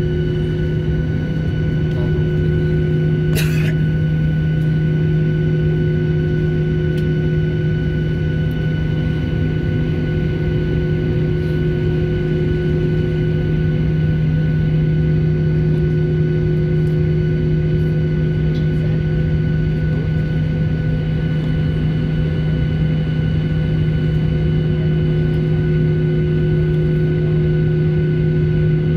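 Steady drone of an airliner cabin: a constant low hum with a few higher steady tones from the aircraft's running systems, with one brief click about three and a half seconds in.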